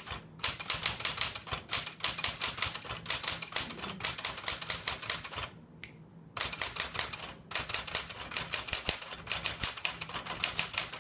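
Rapid typing on a 1960s Smith Corona Galaxie II manual typewriter: quick runs of firm, fairly loud keystroke clacks with a couple of short pauses between bursts.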